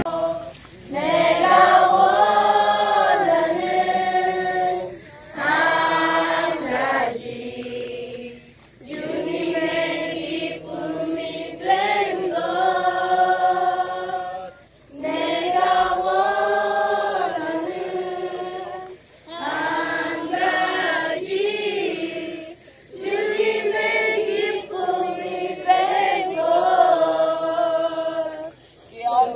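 A group of children and teenagers singing together without accompaniment, in phrases of a few seconds with short breaks between them.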